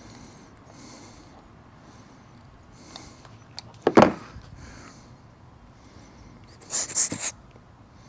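Breathing close to a clip-on microphone, soft puffs every second or two. Two louder bursts of noise stand out: a short sharp one about four seconds in and a longer, hissier one near seven seconds.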